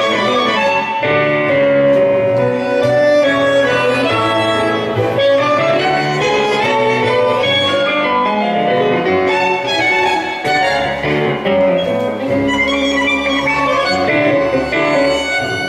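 Tango ensemble playing live: a violin carrying the melody over piano and bandoneon, continuously and without a break.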